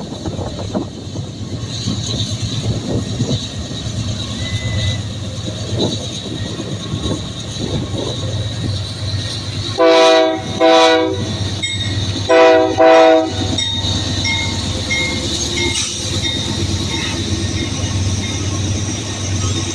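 A diesel locomotive's air horn sounds four blasts in two pairs about halfway through, each blast a multi-note chord. Under it runs the steady rumble and wheel clatter of a rolling train.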